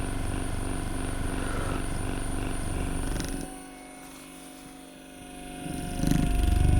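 FitIndex handheld percussion massage gun running with a steady motorised buzz. A little past halfway it goes much quieter for about two seconds, then comes back louder near the end.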